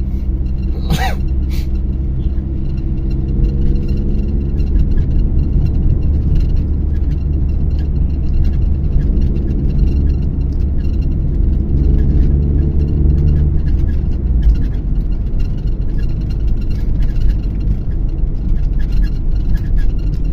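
Car engine hum and road rumble heard from inside the cabin while driving. The engine's steady drone shifts pitch a few times and drops noticeably about two-thirds of the way through. There is one brief sharp sound about a second in.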